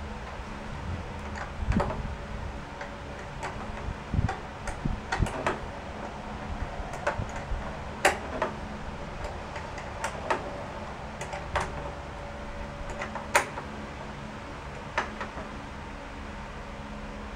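Irregular clicks, clinks and light knocks of hand tools and small parts being handled during work on the mower's fuel line, two of them sharper than the rest, over a steady low hum.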